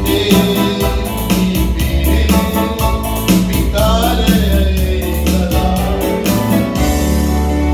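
Closing bars of a Sinhala song: a woman singing over a steady beat of percussion and keyboard-like accompaniment. Near the end the beat stops, leaving a held chord.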